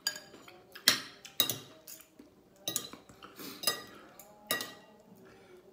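Metal spoon and fork clinking against dishes while eating: a string of about eight sharp clinks with short ringing.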